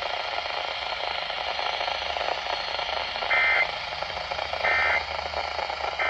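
A Midland weather radio's speaker carries steady broadcast hiss. In the second half come two short buzzy data bursts about 1.3 seconds apart, with a third starting at the very end: the SAME end-of-message tones that close a NOAA Weather Radio emergency alert.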